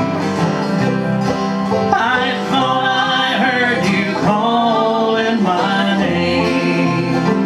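Live acoustic country band playing a slow song: strummed acoustic guitars, banjo and bass.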